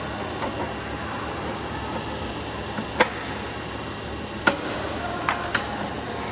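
Downspout forming machine running with a steady mechanical noise, broken by sharp metal clanks about three seconds in, again about a second and a half later, and twice in quick succession near the end.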